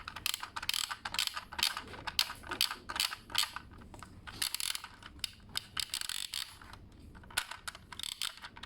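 Small plastic toy parts clicking and rattling, a rapid, irregular run of clicks.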